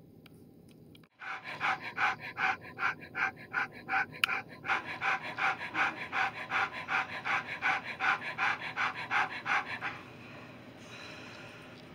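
Nursing mother dog, an Alaskan Noble Companion Dog, panting rapidly and steadily at about three breaths a second, starting about a second in and stopping about two seconds before the end.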